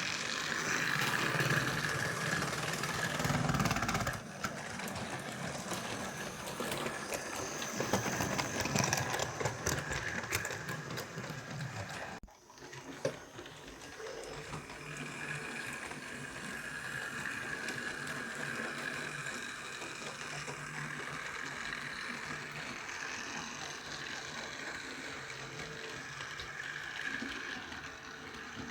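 Model train running on its track: the small electric motor whirring, with clicks and rattles from the wheels on the rails. The sound breaks off briefly about twelve seconds in, then carries on more evenly.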